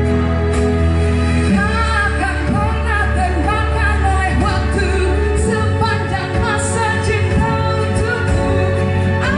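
A woman singing a pop song into a handheld microphone over a backing track of steady bass and held chords. Her voice comes in about one and a half seconds in.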